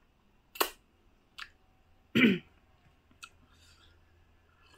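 Close-up mouth sounds of a person eating: a few sharp smacks and clicks spaced roughly a second apart, the loudest about two seconds in.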